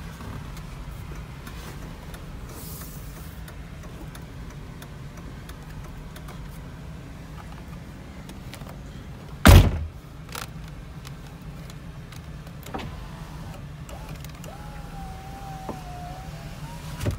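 The power window motor of a 2004 GMC Yukon Denali runs near the end, a whine that wavers and then rises slightly in pitch. A single heavy thump sounds about halfway through, over a steady low hum.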